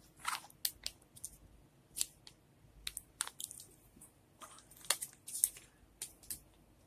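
Thin clear plastic snack container being handled and pried open: an irregular scatter of sharp plastic clicks and crackles.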